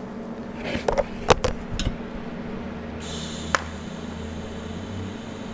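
Metal clicks and knocks as the stainless fuel-cell parts and welding torch are handled, then a short hiss about three seconds in, followed by a click, over a steady electrical hum.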